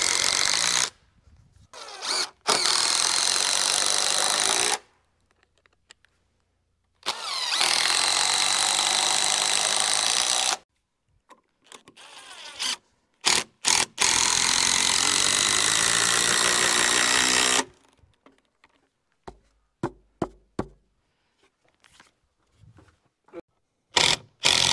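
A handheld power tool running in repeated bursts of two to four seconds, with a steady whine, starting and stopping sharply, about four times, with a few short blips of the trigger between.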